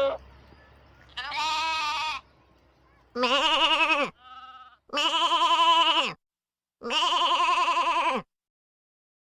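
Sheep bleating: four loud, wavering bleats of about a second each, with a faint short one between the second and third.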